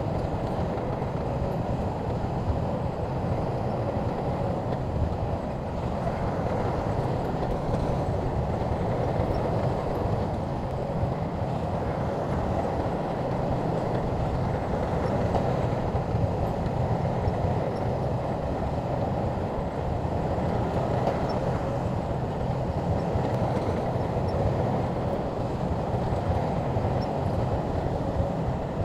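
Shantui crawler bulldozer's diesel engine and steel tracks running steadily as it works, a continuous low rumble with no let-up.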